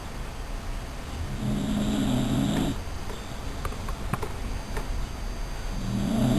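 Dachshund snoring: two long snores about four and a half seconds apart, the second starting near the end, over a cat's steady low purring.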